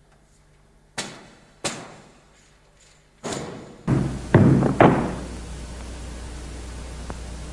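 Loud isolated percussion strikes, drum or timpani accents of the dance music, each dying away with a reverberant tail. About four seconds in, the steady hiss of an old recording comes in, and two more heavy strikes follow close together.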